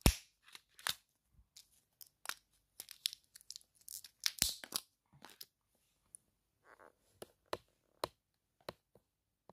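Plastic blister packaging on a cardboard backing being peeled and torn open by hand: a sharp crack at the start, then irregular crackles and snaps, busiest about four to five seconds in, thinning out toward the end.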